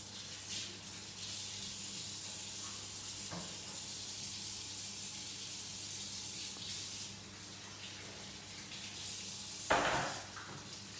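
Kitchen tap running steadily into the sink while hands are washed under it, with a single short knock near the end.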